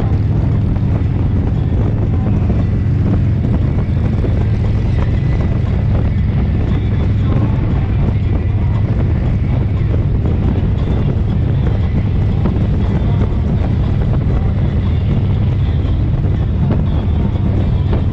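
Motorcycle engine running steadily at cruising speed, a loud low drone, with wind rushing over the microphone.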